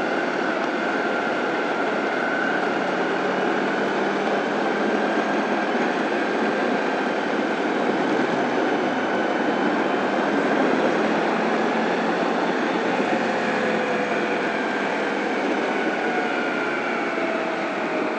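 Honda ST1100 V4 touring motorcycle riding along a freeway in traffic: a steady rush of wind and road noise over the engine, with faint engine tones drifting slightly in pitch in the second half.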